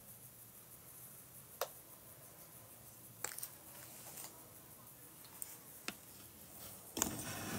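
A few faint, scattered clicks and taps from a small sound card with pads and buttons as it is handled, over a quiet room. A louder stretch of handling noise comes near the end.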